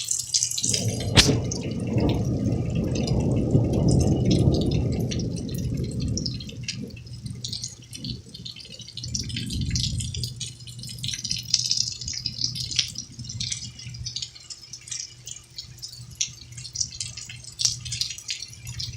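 Rain dripping and pattering in quick small ticks. About a second in, a low rumble of thunder swells and fades over about five seconds, and a weaker rumble follows near the middle.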